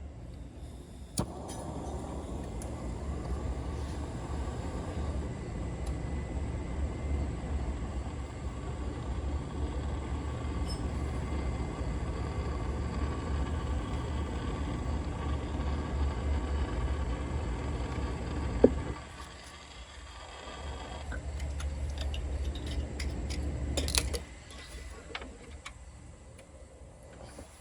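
Heat tool running with a steady rushing hiss and low rumble as it heats a seized T27 Torx fastener to free it. It switches on with a click about a second in and cuts out with a sharp click after about eighteen seconds. It then comes back for about three seconds and stops again with a few clicks.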